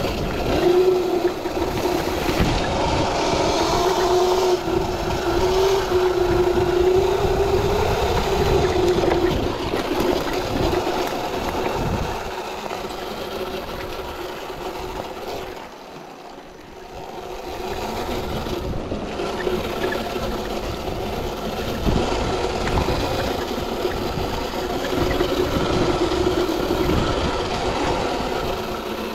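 Sur-Ron electric dirt bike under way: a steady electric-motor whine that drifts up and down with the throttle, over a rushing of wind and tyre noise. It eases off and goes quieter about sixteen seconds in, then picks up again.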